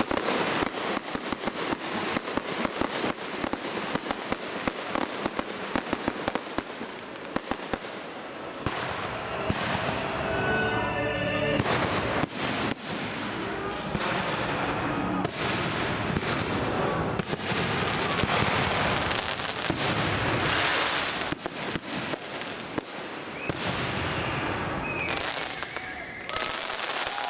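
Aerial fireworks going off: a dense run of rapid crackling bursts for the first several seconds, then more spaced bangs and crackles over a steady rumble of the display. Onlookers' voices come through between the bursts.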